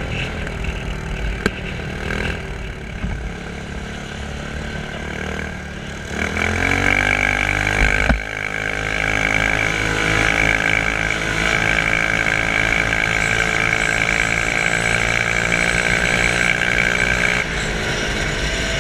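Quad bike (ATV) engine running at low revs, then revving up about six seconds in and holding a steady higher pitch while riding, easing off near the end. A single knock about eight seconds in.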